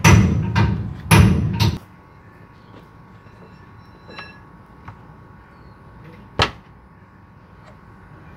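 Air filter housing cover of a Mitsubishi Fuso Canter truck being thumped into place by hand: three heavy thumps in the first two seconds. Then come small metal clicks as the housing's spring-clip latches are snapped shut, the sharpest about six seconds in.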